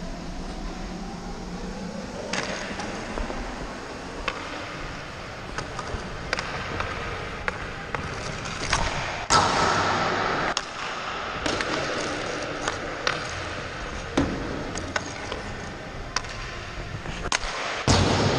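Hockey skate blades scraping and carving the ice, with frequent knocks of a stick and puck on the ice. Sharp cracks about nine seconds in and again near the end, typical of a puck being shot.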